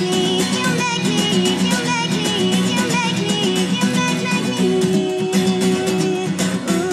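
A woman's solo song to a strummed and picked steel-string acoustic guitar, with her voice singing over the guitar.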